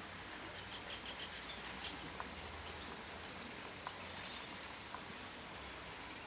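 Weaver birds chattering: a quick run of short, high chirps in the first two seconds or so, then a few scattered faint chirps over a steady background hiss.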